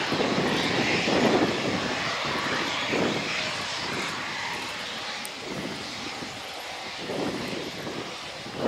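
Twin Eurojet EJ200 turbofans of a Eurofighter Typhoon running at taxi power: a steady jet rush that slowly grows quieter.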